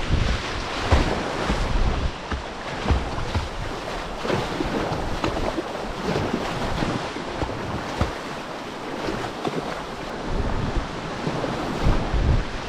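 Rushing, splashing floodwater of a high-running river around the kayak, with gusts of wind buffeting the microphone.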